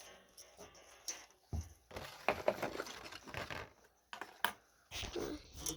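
Small objects being handled and moved about by hand: scattered clicks, light knocks and scraping or rustling, loudest around the middle and again near the end.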